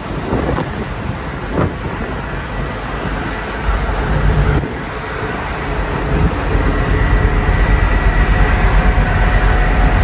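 Strong wind buffeting the microphone on a passenger ship's open deck: a heavy, gusting rumble that grows stronger in the second half.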